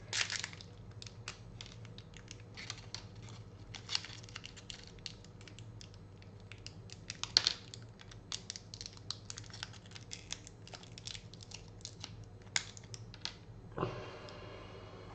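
Hands handling and fitting pieces of a model build, making irregular light clicks and taps, with a few louder knocks; the loudest is about halfway through.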